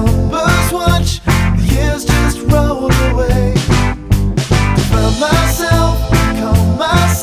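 Background rock song with a steady beat, bass and a singing voice.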